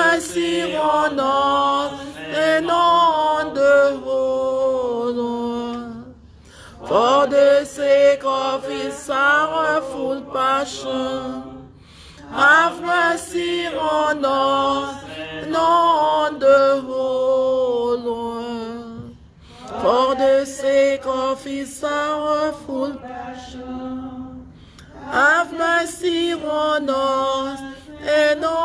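A solo voice singing a slow devotional chant in long phrases of about six seconds each, with short breaths between them.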